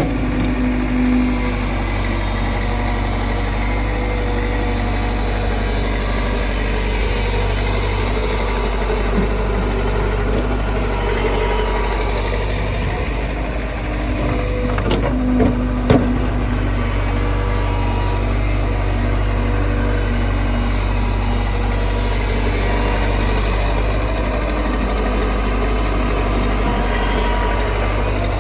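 Hitachi backhoe loader's diesel engine running steadily at work, with a sharp knock at the start and a couple more about halfway through.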